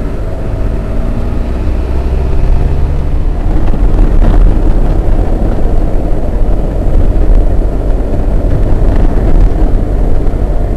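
Steady engine and tyre noise inside a moving Volkswagen Passat, with a deep rumble. A faint engine hum shows for the first few seconds, and the road noise grows louder about four seconds in.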